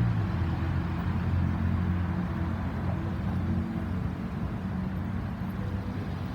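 An engine running with a steady low drone, with a slight change in its note about halfway through.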